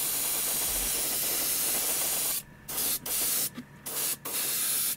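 Airbrush spraying black primer, a steady hiss that stops and starts several times in short bursts in the second half as the trigger is released and pressed again.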